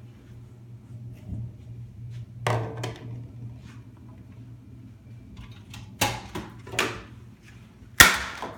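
A few sharp knocks and thumps indoors over a low steady hum, the loudest near the end.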